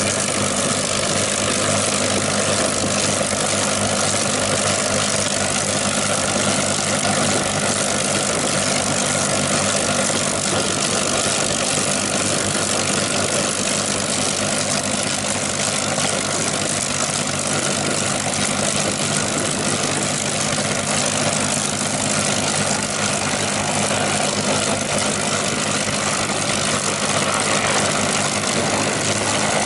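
Rolls-Royce Merlin V12 of a Spitfire TR9 two-seat trainer idling steadily after start-up, its propeller turning.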